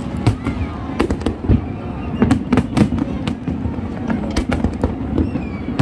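Fireworks display going off in a rapid, irregular series of sharp bangs and crackles.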